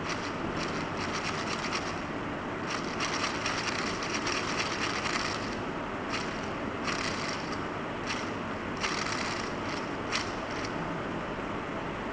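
Small children's bicycle bell rung in bursts of rapid metallic strikes, some long, some brief, over a steady hiss.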